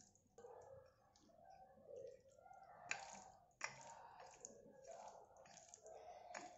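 Faint wet squelching and crackling of raw diced chicken being squeezed and kneaded by hand to work in salt, pepper and seasoning, with two sharper clicks about three and three and a half seconds in.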